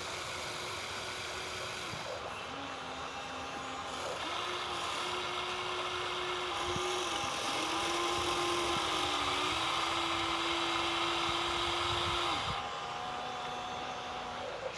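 Small electric motor of a radio-controlled construction model whining at steady pitches over a hiss. The pitch steps up and down several times, and the sound is loudest from about four seconds in until near twelve seconds.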